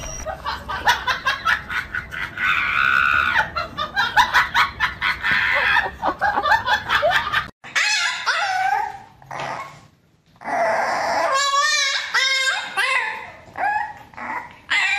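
Dogs vocalizing, mixed with laughter in the first half; after a sudden cut about halfway, a puppy whining and yelping in wavering high cries, strongest a few seconds before the end.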